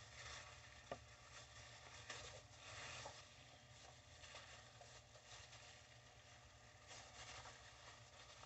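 Near silence with faint wet squishing of raw pig intestines being pulled apart by plastic-gloved hands, and a single small click about a second in.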